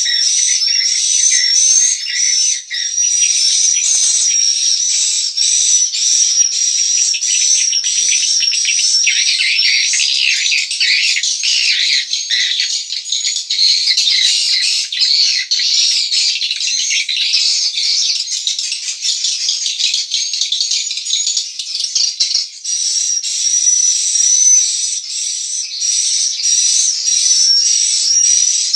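Edible-nest swiftlets twittering and chirping in a dense, high chorus, with a wavering high whistle running through it; the chirping grows thickest from about ten seconds in and thins again a little past twenty seconds.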